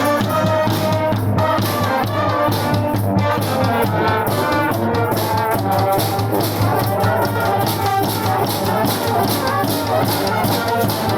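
Street brass band playing live: horns over a steady drum beat.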